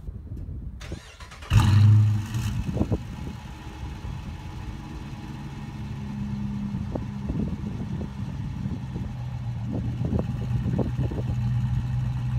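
A 2016 Dodge Challenger's 5.7-litre Hemi V8, straight-piped with the mufflers deleted, starts up about a second and a half in with a loud flare. It then settles into a steady, loud idle.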